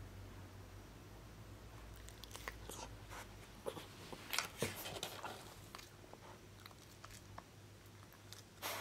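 A Kai Ken dog rolling and wriggling on a wooden floor: faint scattered rustles and small clicks, busiest a few seconds in, with a louder rustle near the end.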